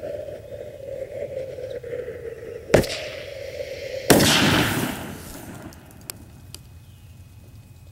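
Festival-ball firework shell loaded upside down in a cardboard mortar tube going off: a sharp bang, then about a second and a half later a louder blast as flame shoots out of the tube's top, with a rushing hiss that fades over about a second and a couple of faint pops after.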